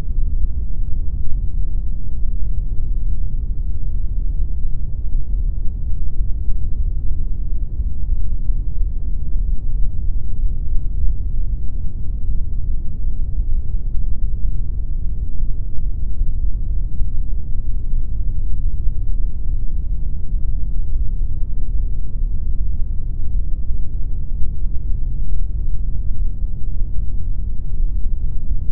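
Steady pink noise: an even, unbroken deep hiss with most of its weight in the low end and little treble, unchanging throughout.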